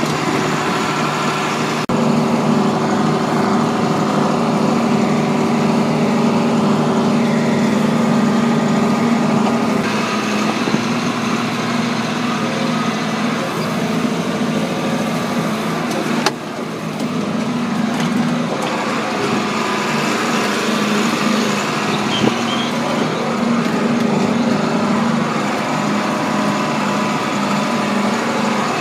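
John Deere 4440 tractor's six-cylinder diesel engine running steadily while pulling a rake through corn stalks.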